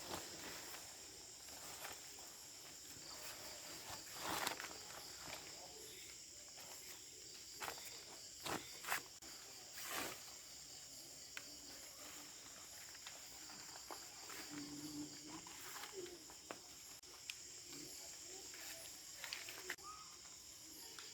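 A steady high-pitched chorus of crickets and other forest insects, with a few scattered knocks and taps, some of them close together.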